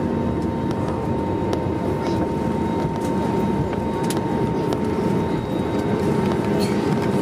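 Cabin noise of an Airbus A320neo decelerating along the runway just after landing, spoilers raised: a steady rumble with a thin steady whine over it.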